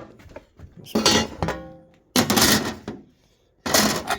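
Metal parts of a radar display unit clanking as they are handled and moved, in three clattering bursts. The first leaves a brief metallic ring.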